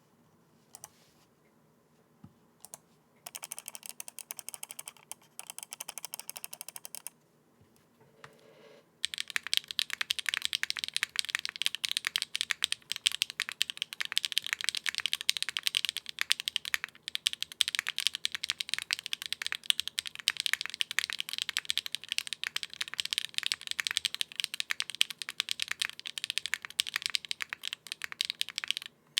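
Bakeneko custom mechanical keyboard with stock HMX Sunset Gleam linear switches, DCS-profile Windbreaker keycaps, a half FR4 plate and no foam, being typed on. A few single clicks come first, then lighter typing for a few seconds and a short pause. From about nine seconds in, fast, continuous and louder typing follows.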